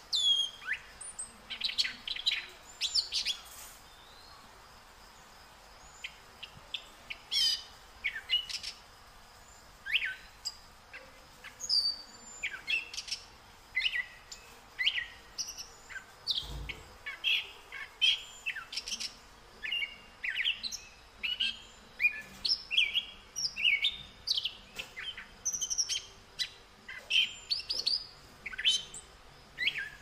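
Birds chirping: many short, high calls, often falling in pitch, following one another in quick, uneven succession.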